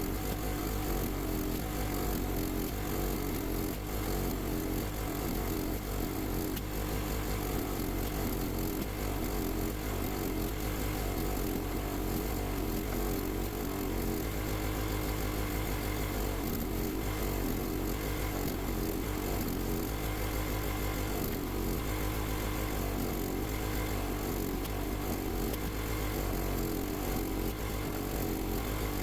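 Log splitter running steadily, an even motor drone that holds at the same level throughout.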